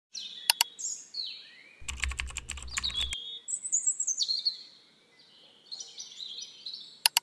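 Sound effects of an animated like-and-subscribe intro: sharp clicks, a pair about half a second in, a quick run around two to three seconds over a low buzz, and another pair near the end, set among bird-like chirps and swooping whistles.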